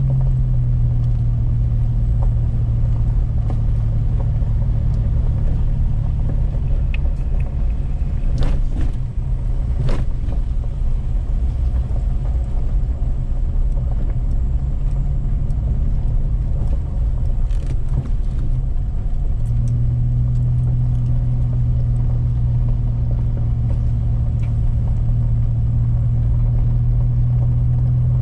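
Pickup truck driving on a dusty dirt road, heard from inside the cab: a steady engine and road drone. A few sharp knocks or rattles come about 8 and 10 seconds in and again near 18 seconds. The drone eases off through the middle and comes back strongly about two-thirds of the way through.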